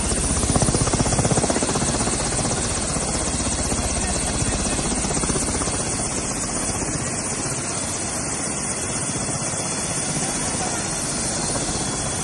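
Helicopter running on the ground with its rotor turning: a steady, loud whir and rapid blade chop.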